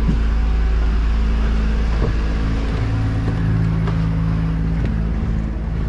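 Sailboat's engine running steadily, motoring, with a couple of light knocks about two and five seconds in.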